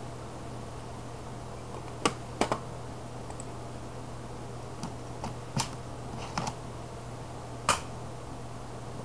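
Computer mouse clicking, about eight sharp clicks scattered over several seconds, two of them quick double-clicks, over a low steady hum.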